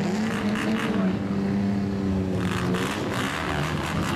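Straight-piped exhaust of a lowered kaido-racer-style old Japanese car moving at low speed, its engine note held fairly steady with slight rises and falls. A harsher, noisier rasp comes in about halfway.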